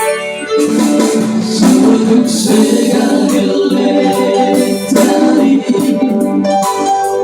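Music: an instrumental passage of a song, with pitched instruments playing steadily.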